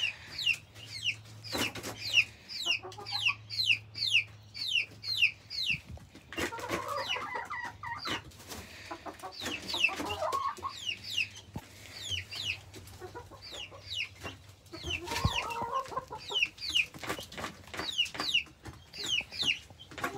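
Chicks peeping almost without pause: short, high calls that slide down in pitch, several a second. Hens cluck in lower voices among them in three short spells.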